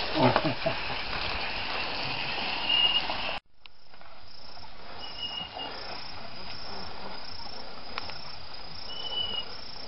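Steady outdoor hiss with a few short high-pitched chirps. The sound cuts out abruptly a little over three seconds in, then resumes quieter.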